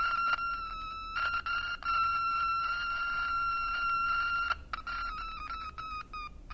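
A steady high electronic tone with overtones, cut off briefly about a second in, then broken into rapid stuttering cuts over the last two seconds.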